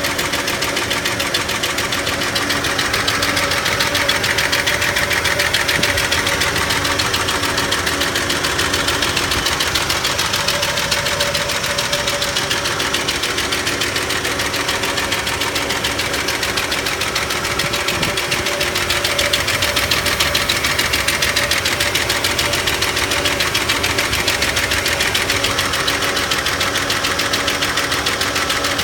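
1991 Ford F-150 engine running steadily with a fast, even ticking that keeps pace with the engine. The owner suspects the ticking comes from the valves.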